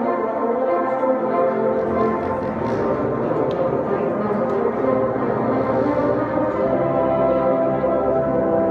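An ensemble of bassoons and contrabassoons playing held chords, several parts sounding together in long sustained notes.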